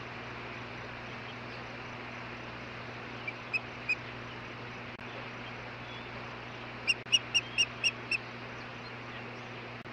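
Osprey calling with short, high whistled chirps over a steady microphone hiss: three soft chirps about three and a half seconds in, then a louder run of six, about four a second, near seven seconds in.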